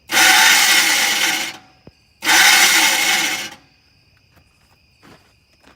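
Starter cranking a 6.5 liter turbo diesel in two bursts of about a second and a half each; the engine turns over but does not start.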